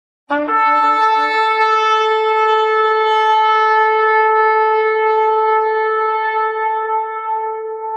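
A shofar (ram's-horn trumpet) sounding one long blast: a rough lower tone at the onset, then a single steady held note that fades near the end.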